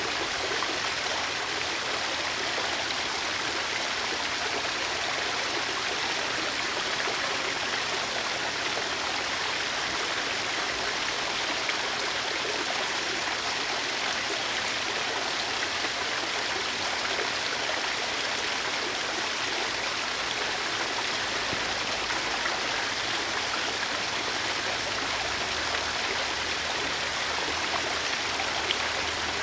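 Backyard garden waterfall running, a steady splash and rush of falling water.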